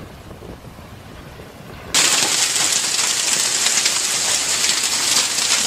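A quieter low rumble, then a loud, steady hiss like heavy rain starts abruptly about two seconds in and cuts off sharply near the end.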